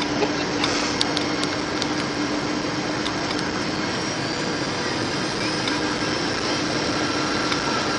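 Cabin noise inside a Boeing 737-900ER airliner on approach: the steady rush of its CFM56 jet engines and airflow, with a steady low hum. A few light clicks come in the first two seconds.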